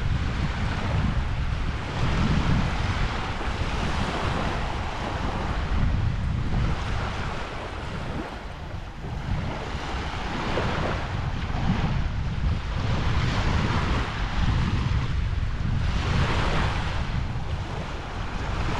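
Small waves washing in and out on a beach, the hiss of the surf swelling and fading every couple of seconds, with wind buffeting the microphone as a steady low rumble.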